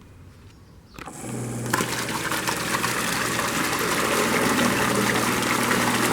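Homemade PVC-pipe water pump driven by an old washing machine motor starts up about a second in: the motor sets up a steady low hum and water begins gushing through the pipes, growing louder over the next couple of seconds and then running steadily.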